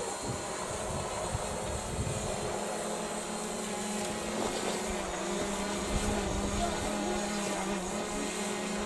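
Quadcopter drone's propellers humming at a steady pitch, which dips slightly about five seconds in, over irregular low rumbling.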